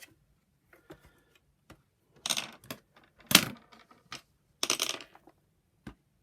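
Hard plastic parts clattering and knocking as they are handled and set down: three short rattling clatters, the loudest about three seconds in, among a few light clicks.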